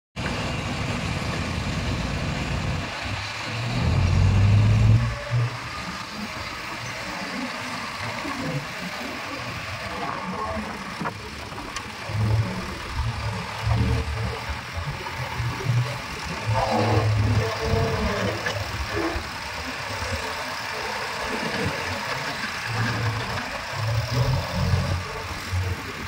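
JCB 3DX backhoe loader's diesel engine running as the machine works, its low rumble swelling and easing again and again as the engine is loaded, loudest about four seconds in.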